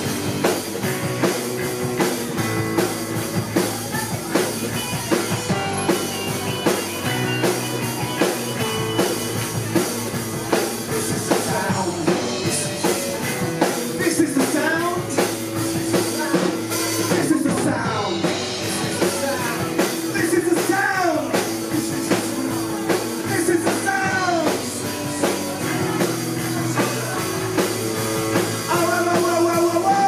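A live rock band playing: drum kit, electric bass guitar and keyboard, with a lead voice over the band at times.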